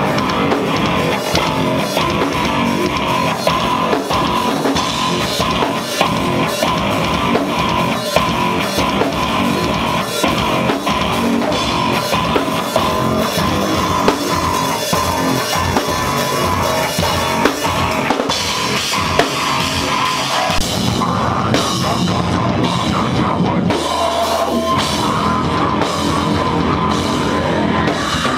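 Heavy metal band playing loud in a rehearsal room: distorted electric guitar and a drum kit with crashing cymbals. Screamed vocals come in near the end.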